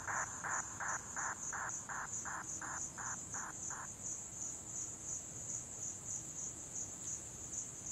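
Night insects chirping: a steady high, finely pulsing trill, with a lower chirp repeating about three times a second that stops about four seconds in.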